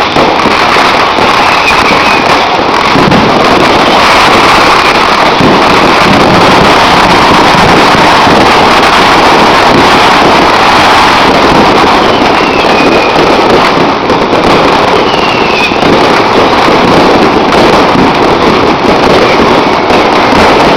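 Dense, continuous barrage of fireworks and firecrackers going off together, the bangs running into one steady, loud din with no pauses.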